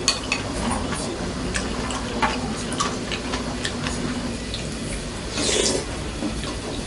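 Spoon and bowls clinking lightly over liquid sounds of soup being stirred and sloshed, with a short louder swish about five seconds in.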